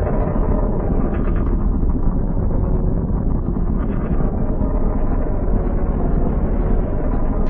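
A steady, loud, low rumble without any clear pitch or rhythm.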